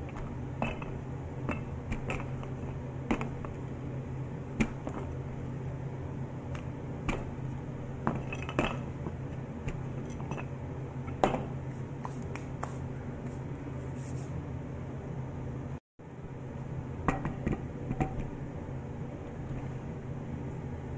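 Wooden rolling pin rolling and knocking on a countertop, giving scattered sharp clicks and taps over a steady low hum. Near the end a glass baking dish clinks as it is set down and handled on the counter.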